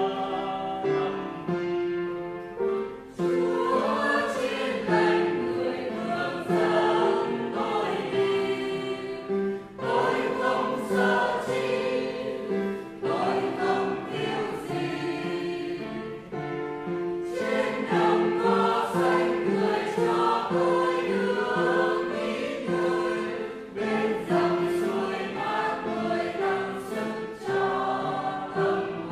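Church choir singing a Vietnamese Catholic hymn, phrase after phrase, with brief breaks between phrases.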